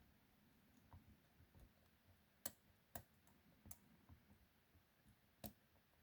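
Faint, scattered metallic clicks of a lock pick and tension wrench working in a 40mm Mi-Lock padlock's cylinder during single-pin picking, with a handful of sharper clicks a second or so apart.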